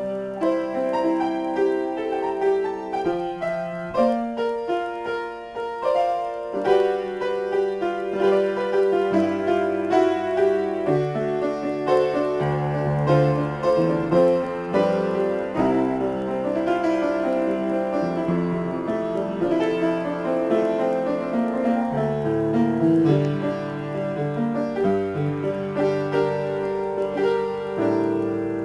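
Upright piano played solo in a free improvisation: a continuous stream of melody and chord notes, with low bass notes coming in under them from about nine seconds in.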